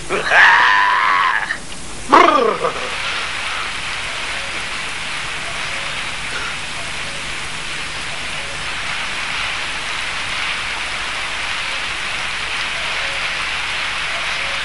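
Heavy rain falling steadily in a downpour, after two drawn-out wailing cries with sliding pitch in the first couple of seconds.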